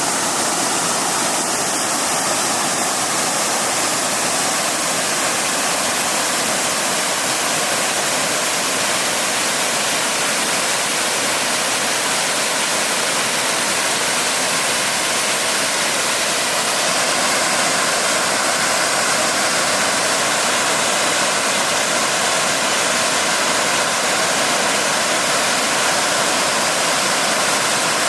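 Steady rushing roar of a large waterfall, its water pouring and splashing without a break.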